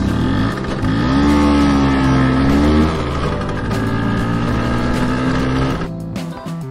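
Motor scooter engine sound effect: it revs up with a rising pitch about a second in, then settles to a lower, steady running note and stops near the end.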